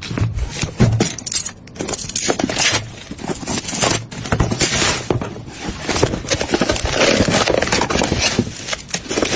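Computer parts being handled: dense, irregular clicking, rattling and scraping of small hard pieces.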